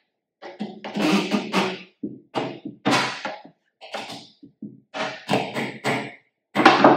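Claw hammer prying a stubborn nail out of two nailed pieces of wood: a series of about eight short thunks and creaks as the hammer is levered back again and again, loudest near the end.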